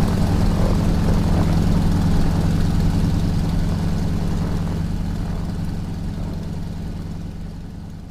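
North American T-6 Texan's nine-cylinder Pratt & Whitney R-1340 radial engine and propeller running steadily, heard from the cockpit. The sound fades away over the second half while its pitch stays the same.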